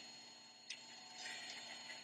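Quiet room tone with a faint steady high whine, a small click about two-thirds of a second in, and a few soft rustles.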